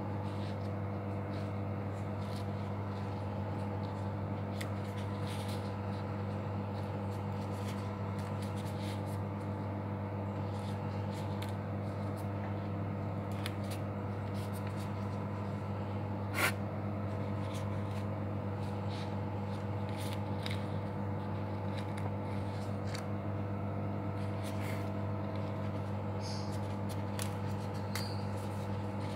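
Light rustling and small clicks of plastic-gloved hands arranging parsley and lettuce on bread slices, with one sharper click about halfway through, all over a steady low hum.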